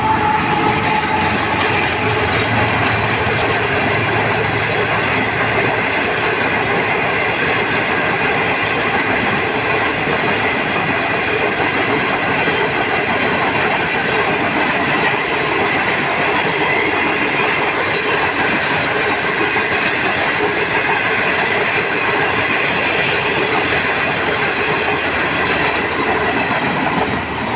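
Long passenger train passing close at speed, its coaches rolling by with a steady rush and a clickety-clack of wheels over rail joints. A low hum in the first few seconds fades out.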